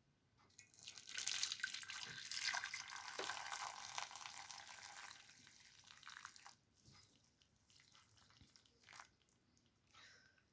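Water pouring in a steady stream for several seconds, starting about a second in and tapering off after about five seconds.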